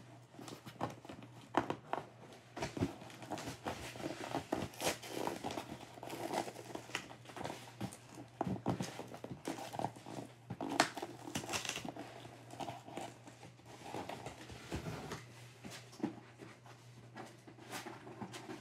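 Cardboard box and packaging being handled up close: irregular rustling and crinkling with many small knocks and scrapes as things inside are shifted about.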